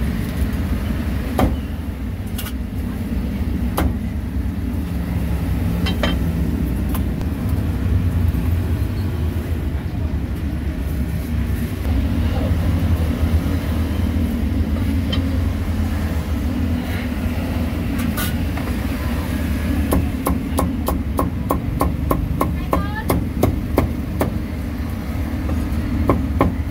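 Steel cleaver chopping crispy roast pork on a thick wooden chopping block. There are a few single knocks at first, then from about two-thirds of the way in a fast run of chops, about three or four a second, over a steady low background rumble.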